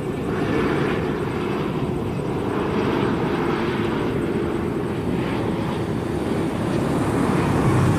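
Airbus A330-900neo airliner on final approach with gear down, its Rolls-Royce Trent 7000 jet engines giving a steady, low rumble.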